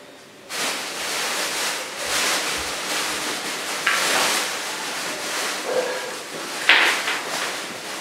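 Close rustling and crinkling handling noise that starts suddenly about half a second in, with two sharper crinkles about four seconds in and near seven seconds.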